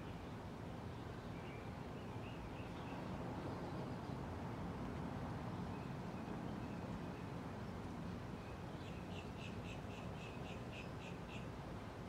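1992 S.M.C. Laguna KB36 ceiling fan running with a steady low hum. Birds chirp now and then, and near the end one bird gives a quick run of about ten calls, roughly four a second.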